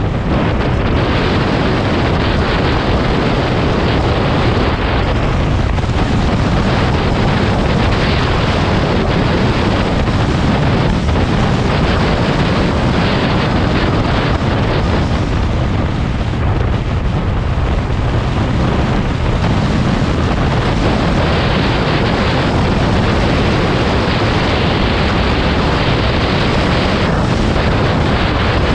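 Steady, loud rumble of wind buffeting the microphone, with no clear engine note or other sound standing out.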